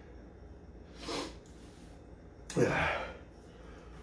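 A man breathing hard against the burn of a Moruga Scorpion chili pepper: a short sharp breath about a second in, then a louder, longer gasp with some voice in it about two and a half seconds in.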